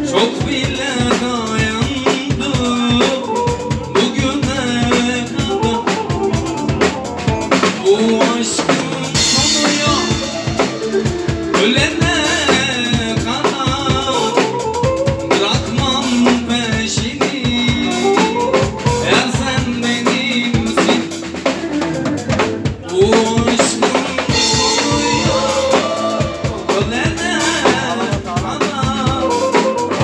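Live band playing an instrumental passage of an arabesk song: a drum kit keeps a steady beat with snare and bass drum under a wavering melody line.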